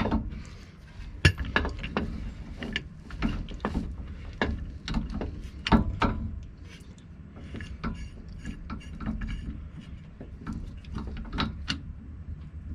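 Irregular metallic clicks and clinks of a C-press and its receiver cups being fitted and snugged against a U-joint cap in the axle yoke.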